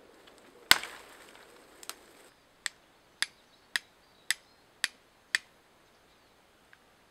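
A dry twig snaps sharply once, then a steel flint striker is struck against a piece of flint six times in a steady rhythm, about two crisp strikes a second.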